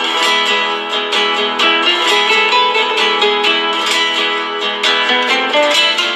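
Background music: an acoustic guitar picking a melody, the notes plucked in quick succession.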